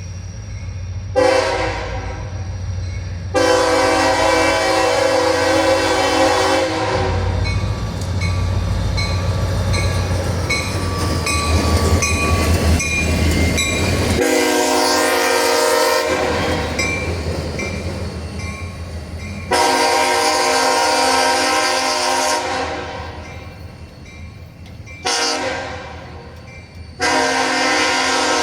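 Diesel locomotive's multi-chime air horn sounding repeated blasts, mostly long with a short one near the end, in the long-long-short-long pattern used for a grade crossing. Under it run the locomotive's engine rumble and the rhythmic clatter of the train over the rails.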